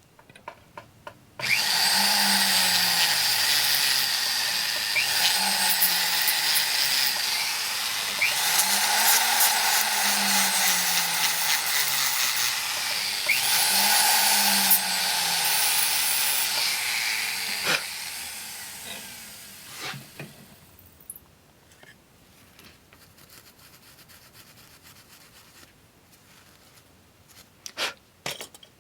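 Small rotary tool spinning a sandpaper disc, sanding solder off the inside floor of a metal ring. The motor's pitch rises and falls again and again as the speed changes. It starts about a second in and winds down around two-thirds of the way through, leaving only a few light clicks.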